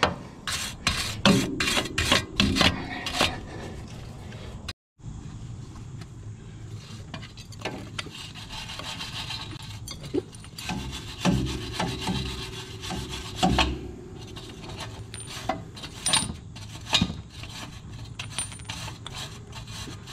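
Hand wire brush scrubbing rust off a truck's lower shock-absorber stud in quick back-and-forth strokes, metal bristles rasping on metal. The brushing is strongest in the first few seconds and breaks off about five seconds in. Lighter scraping and scattered clicks follow.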